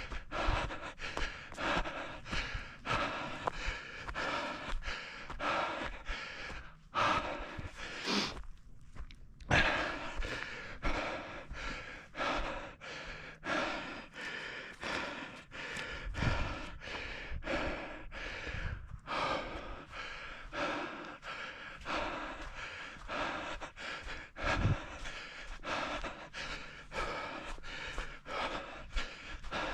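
An orienteer running hard and panting, the breaths keeping time with steady footfalls at about three strokes a second. Both break off briefly about eight to nine seconds in.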